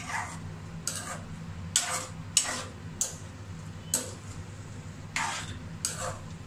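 A steel spoon stirring and scraping chunks of potato, peas and cauliflower in a black frying pan: about eight irregular scrapes and clinks. A low steady hum runs underneath.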